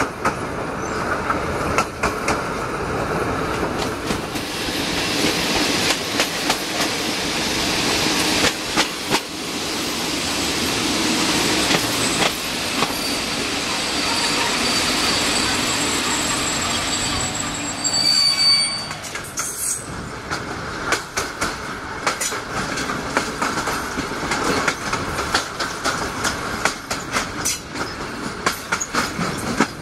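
Passenger train coach wheels running on rails, heard through an open window: a rushing wheel noise with a thin high squeal from the wheels in the middle, then an even clickety-clack of wheels over rail joints in the second half.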